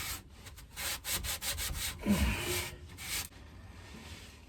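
Irregular rubbing strokes by hand as grime is cleaned off an old rotary welding generator, stopping a little after three seconds in.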